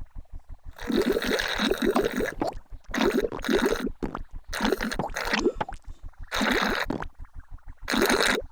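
Cartoon sound effect of noisy, gurgling slurps of someone drinking juice, in five loud bursts, over a steady low pulsing hum.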